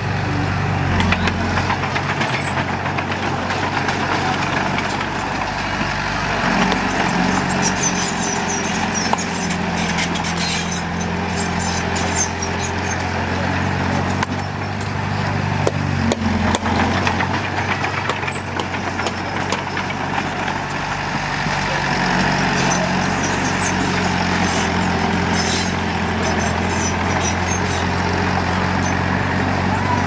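Diesel engine of a small dump truck or bulldozer working on a fill site, running steadily with its speed shifting a few times, with scattered metal clanks and rattles.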